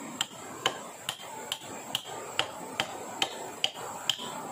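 Hand tool striking wood in a steady rhythm: about ten evenly spaced strikes, a little over two a second, each with a short metallic ring. A steady high tone runs underneath.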